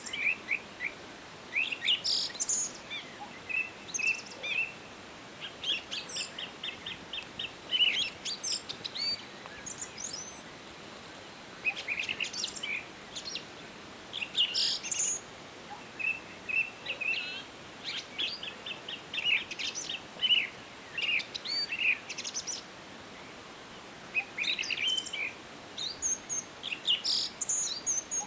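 Several songbirds singing and chirping in a forest, with rapid trills and short chirps coming in frequent bursts over a faint steady hiss.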